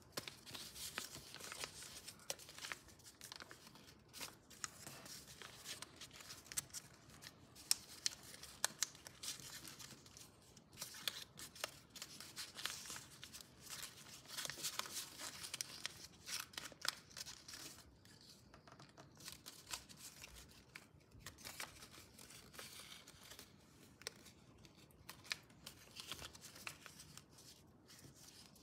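Sheet of paper being folded and creased by hand: irregular rustling and crinkling with short, sharp creasing strokes throughout.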